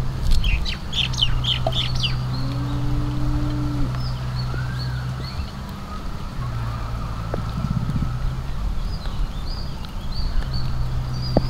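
Chickens clucking and calling, over a steady low hum that stops and starts.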